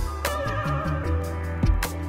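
Background music: held bass notes and a wavering melody line, with an occasional sharp drum hit.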